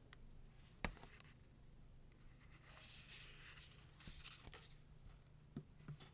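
Near silence with a few faint clicks, the sharpest about a second in, and a brief soft rustle in the middle, like a phone being handled between ringtones.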